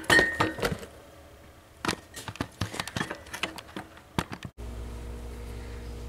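Scattered clinks and knocks of a removed evaporator fan motor being handled, metal on metal. After a cut about four and a half seconds in, a steady low hum takes over.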